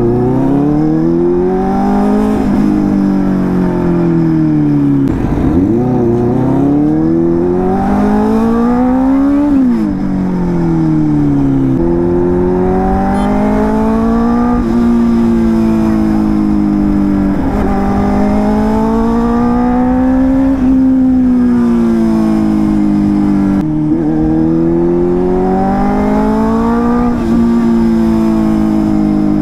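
Benelli 600i's inline-four engine being ridden hard: its pitch climbs under acceleration and falls back again and again.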